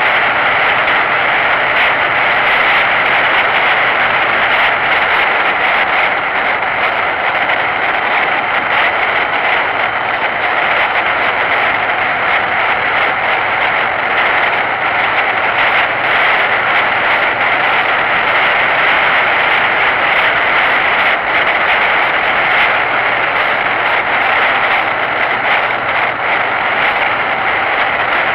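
Motorcycle running at a steady cruising speed, its engine sound mixed with road and wind noise, heard from a camera mounted on the bike. The sound is a steady, unbroken rush with a faint low hum underneath.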